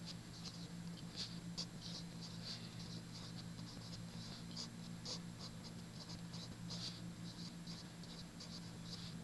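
Pen writing on paper: a run of quick, faint, irregular scratches as words are written out, over a steady low hum.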